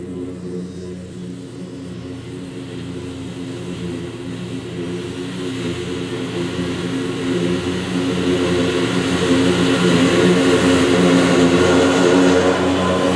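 Scag Cheetah zero-turn mower running steadily while mowing thick field grass, its engine and cutting deck growing louder as it drives up to the microphone.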